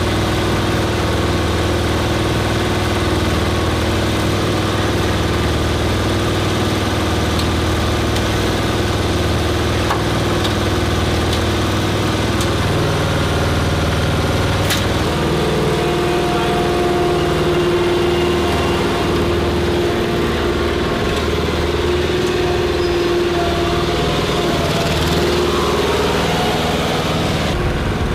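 An engine running steadily, like idling, with its pitch shifting slightly about halfway through.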